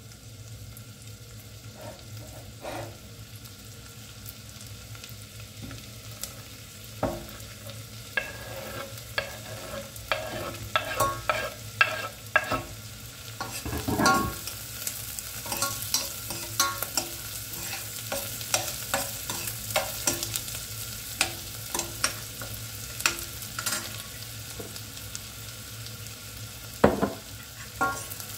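Chopped onions frying in a stainless steel saucepan, sizzling, while a metal spoon stirs and scrapes against the pot. From about eight seconds in, the spoon clinks against the pot often, with heavier knocks about halfway through and near the end.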